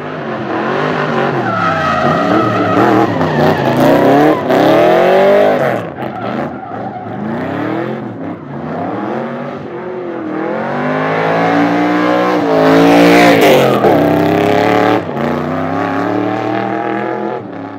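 Turbocharged 500+ hp Nissan 200SX engine revving hard, rising and falling in pitch again and again, with tyres squealing as the car drifts. The loudest, highest revs come about two-thirds of the way through.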